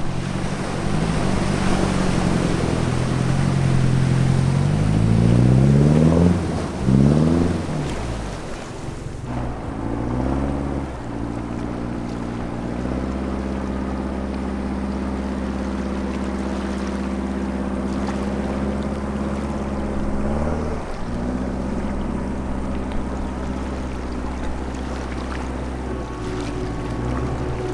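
Avtoros Shaman 8x8 amphibious vehicle's engine revving up in rising sweeps as it drives into the sea, over splashing water for the first several seconds. Then the engine runs at a steady pitch, driving the rear propeller, with a brief dip about twenty seconds in.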